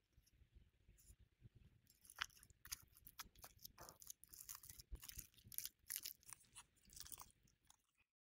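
Faint crisp crackling and scraping of food being worked by hand or utensil, many short noises in quick succession, cutting off abruptly near the end.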